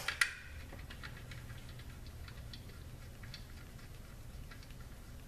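Faint small metallic ticks and clicks of valve-body bolts being threaded in by hand on a Subaru Lineartronic CVT, with a sharper metal clink at the start.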